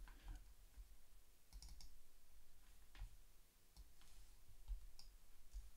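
A few faint, scattered computer mouse clicks over near-silent room tone.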